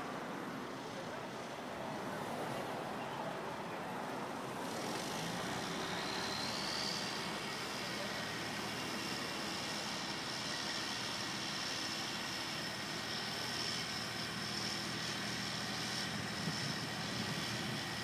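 Crane engine running steadily under load while hoisting a framed wall section. About five seconds in it picks up, and a high whine rises and then holds steady.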